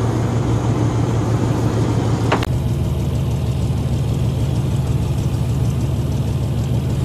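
Fishing boat's engine running with a steady low drone, and a single sharp click about two and a half seconds in.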